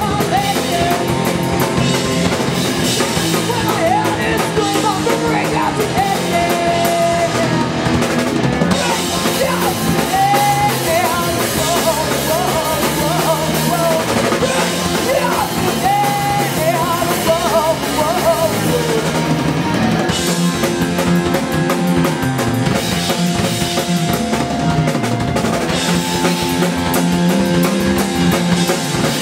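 Horror punk band playing live: a woman singing lead over electric guitar, bass guitar and drum kit. The singing stops about two-thirds of the way in and the band plays on.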